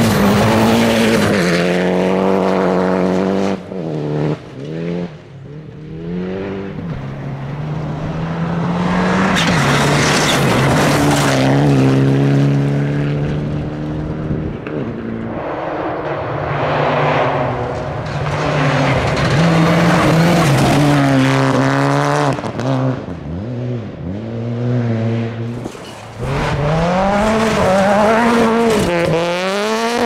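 Rally cars driven hard on a gravel stage, one after another: engines revving high and dropping back, the engine pitch repeatedly climbing and falling as each car accelerates and lifts through the corners.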